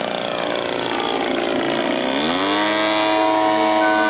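Engine of a radio-controlled scale model airplane flying past, a buzzing engine note whose pitch falls gradually, drops sharply about two seconds in as the plane goes by, then holds steady.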